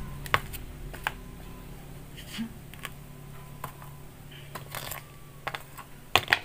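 Scattered light knocks and clicks from handling a rubber tire and tools, ending in two sharp hammer knocks in quick succession near the end, over a faint steady low hum.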